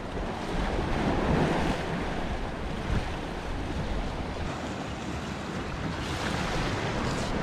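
Ocean waves washing against the rocks at the foot of a concrete seawall: a steady rush of surf that swells about a second in and again near the end, with some wind on the microphone.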